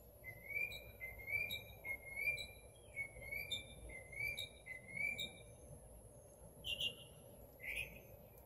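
A bird calling: a short chirp, rising then level, repeated about one and a half times a second for some five seconds, followed by two louder, different calls near the end.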